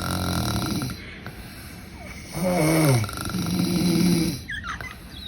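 Two people snoring in turn: a steady, buzzy snore, then about two and a half seconds in a snore that falls in pitch, answered by another steady buzzy snore.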